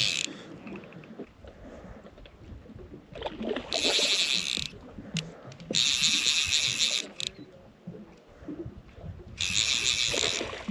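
Fly reel's ratcheting drag buzzing in three rapid bursts of about a second each, with a big trout on the line.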